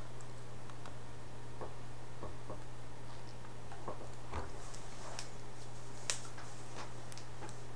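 Steady low hum with scattered faint ticks and clicks, and one sharper click about six seconds in.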